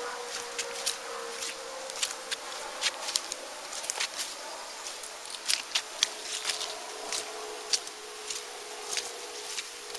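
Footsteps and brushing through dry grass, twigs and brambles, with many irregular sharp crackles and snaps, over a faint steady hum.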